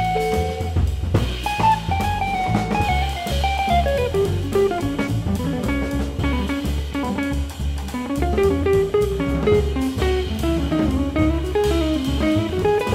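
Jazz trio playing: a hollow-body electric guitar plays a quick single-note melodic line that steps up and down in pitch, over upright bass and a drum kit.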